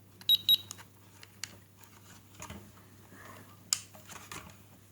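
Two short high-pitched beeps from a battery capacity checker as a drone battery is plugged into it, followed by light handling clicks and one sharper click near the end.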